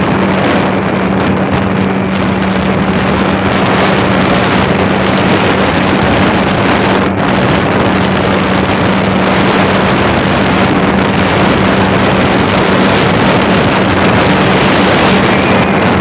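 Speedboat engine running steadily while the boat is underway, a constant-pitch hum under a loud rush of wind and water on the microphone.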